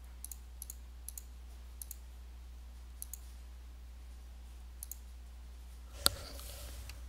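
Computer mouse clicks, mostly in quick press-and-release pairs, about six times, over a steady low hum. About six seconds in comes one louder knock, followed by a short rustle.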